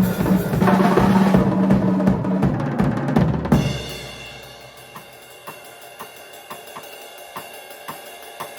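Drum kit played solo: a loud, dense fill of snare, toms and bass drum for about three and a half seconds, then a sudden drop to light, evenly spaced strokes over a ringing cymbal.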